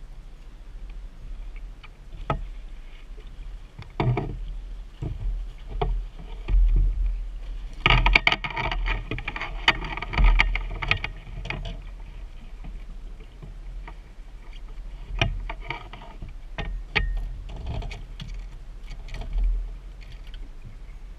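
Wind rumbling on the microphone aboard a small fishing boat, with scattered knocks and thumps. About eight seconds in there is a louder stretch of clatter lasting a few seconds, as a hooked salmon is brought to the landing net and pulled aboard.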